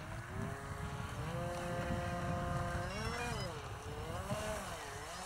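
Small model aircraft motor and propeller running on the ground, its pitch stepping up about a second in, then dipping and rising several times as the throttle is blipped. Wind rumbles on the microphone.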